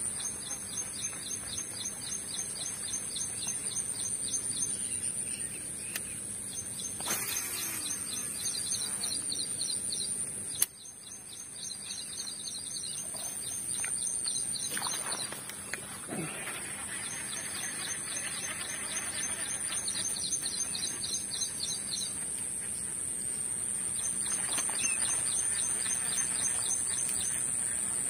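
Birds calling in repeated runs of quick, high chirps, over a steady high-pitched ringing. A single sharp click comes about ten seconds in.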